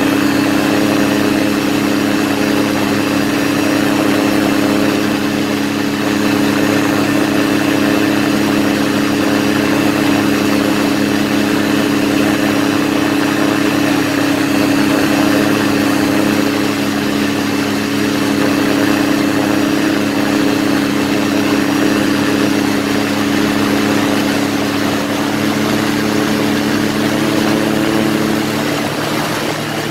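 Quicksilver ultralight's engine and propeller running steadily in flight, heard from on board. Near the end the engine note drops a little.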